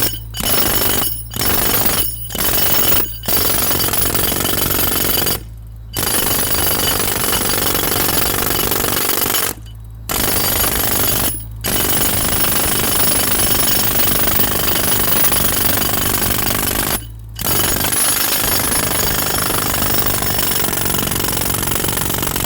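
Jackhammer breaking into a concrete slab: a few short bursts at first, then long runs of hammering with brief stops between them.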